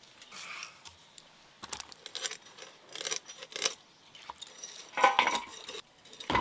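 Stainless steel dishes clinking and knocking as cut vegetable pieces are handled and dropped onto a steel tray, with the loudest clank, briefly ringing, about five seconds in.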